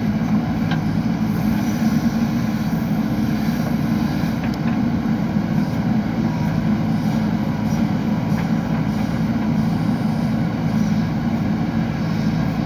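JCB backhoe loader's diesel engine running steadily under work, a constant low drone with a few faint ticks.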